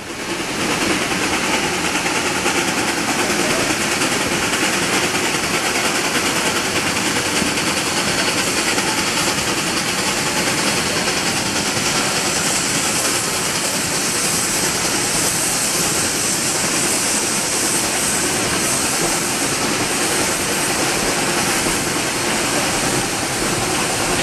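Steady rush of a train under way, heard from an open passenger car behind two Shay geared steam locomotives working upgrade. The sound cuts in abruptly about half a second in and stays even.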